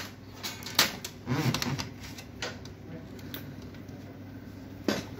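Irregular sharp clicks and taps, about half a dozen, from hands handling the plastic and metal parts and connectors of an opened HP LaserJet 1020 printer, over a steady low hum.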